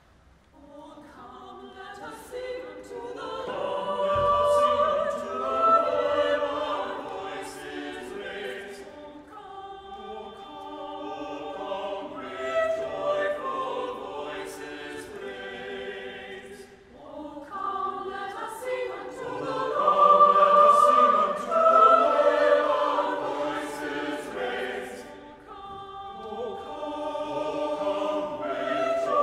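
A mixed church choir singing a choral piece in phrases that swell and fade, with a short break between phrases about every eight seconds.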